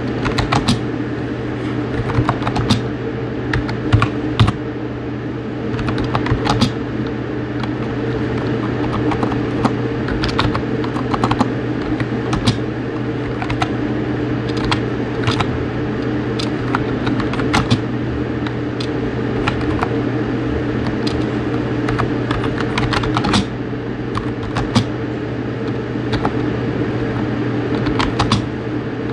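Typing on a mechanical keyboard: a continuous run of sharp key clicks at an uneven typing rate, over a steady low hum.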